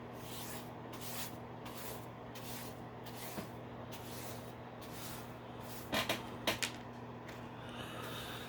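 A few sharp clicks and knocks of hard plastic toy parts being handled, bunched together about six seconds in, over a steady electrical hum.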